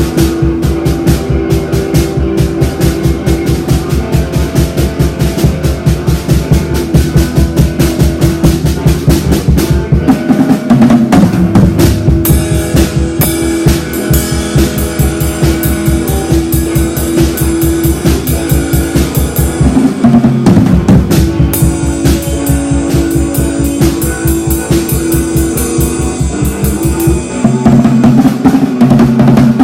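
Rock music with a drum kit and guitar, keeping a steady, fast beat. The low end drops out briefly three times, about a third of the way in, two thirds in and near the end.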